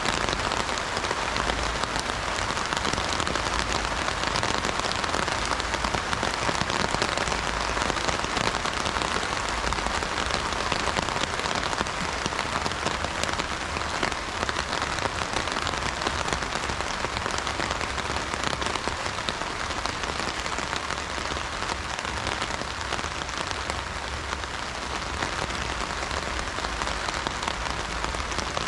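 Rain falling steadily on an umbrella, a dense, even patter of drops.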